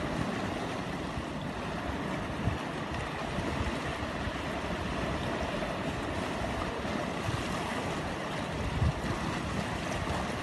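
Steady wash of choppy sea surf against rocks, with wind buffeting the microphone.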